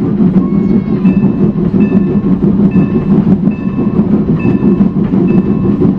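Steam locomotive No. 475's bell ringing with slow, even strokes, about seven in six seconds, over a steady low rumble from the locomotive and train.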